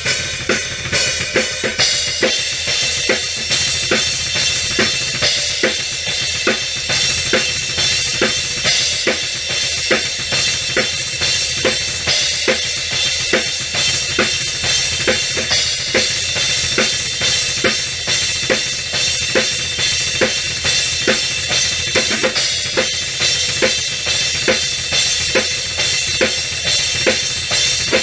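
Acoustic drum kit played with sticks in a steady driving groove: accented drum hits about twice a second over dense, fast bass drum strokes, with a continuous wash of Paiste cymbals on top.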